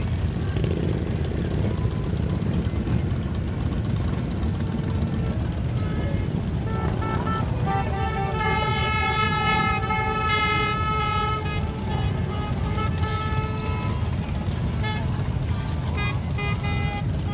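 Many motorcycle engines rumbling at low speed as a large group of bikes pulls out. From about six seconds in, a tune of held, shifting notes plays over the engines for several seconds.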